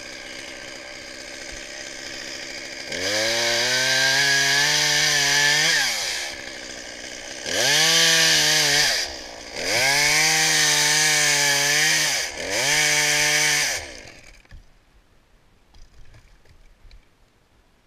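Two-stroke chainsaw idling, then revved to full throttle in four bursts a few seconds long, each rising fast in pitch and falling back. The saw stops about fourteen seconds in.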